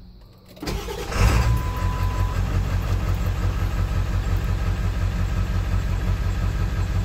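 Ford 7.3 Powerstroke turbo-diesel V8 being cranked and firing up about a second in, restarting after stalling when the throttle was let off, then idling with an even rhythmic diesel knock.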